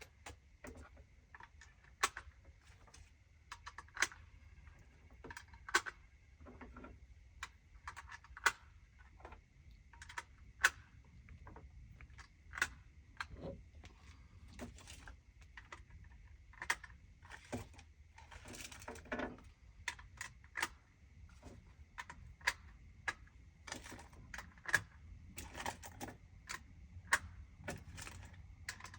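Irregular sharp clicks and light rattles, roughly one a second and sometimes in quick clusters, from small hard objects being handled, over a faint steady hum.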